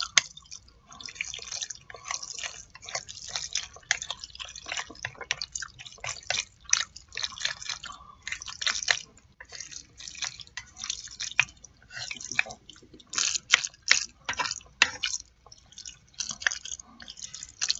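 Close-miked wet chewing and mouth smacking of a person eating jajangmyeon (black bean sauce noodles), a stream of irregular sticky clicks and smacks.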